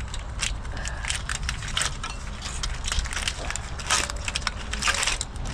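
Irregular crackling and clicking of a plastic-sheathed engine wiring harness being handled and worked into place, busiest about four seconds in, over a steady low rumble.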